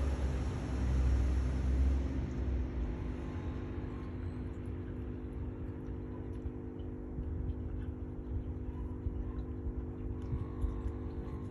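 A steady low mechanical hum with a deeper rumble that swells over the first two seconds and then settles to an even drone.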